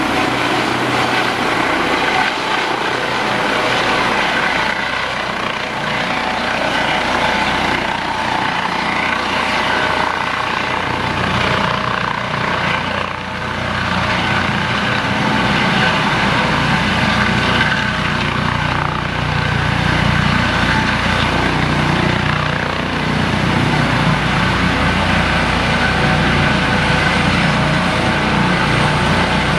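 Eurocopter EC155 twin-turbine helicopter on its landing approach, descending: steady rotor and turbine noise with a constant whine, the low rotor throb growing stronger in the second half as it comes down close.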